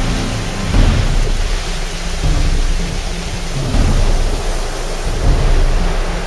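Ocean surf breaking and washing up the beach, under a heavy low rumble that swells and fades every second or so.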